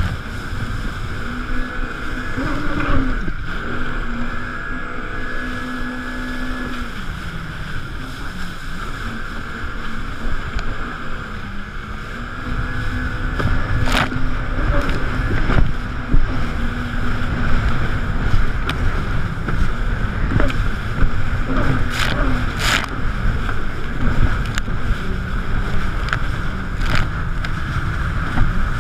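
Jet ski engine running at speed, its pitch stepping up and down with the throttle, over the rush of water and spray against the hull. A few sharp knocks come about halfway through and twice at about three quarters.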